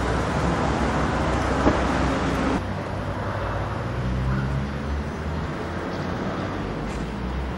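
Outdoor street ambience: a steady hum of distant road traffic, with one short click under two seconds in. About two and a half seconds in, the background drops suddenly to a quieter level at an edit.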